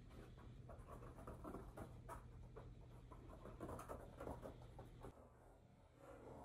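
Faint scratching and light tapping over a low steady hum; the hum stops about five seconds in.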